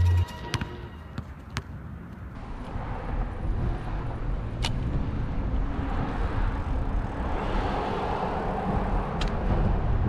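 Wind rushing over a camera microphone with low road rumble while riding a bicycle along a street. A vehicle goes by, swelling in the second half, and a few sharp clicks are heard. The tail of a music track cuts off at the very start.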